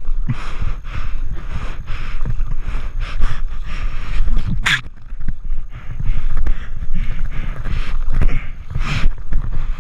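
Kayak paddle blades dipping and splashing in a quick stroke rhythm, with wind buffeting the microphone, and one sharper splash about halfway through.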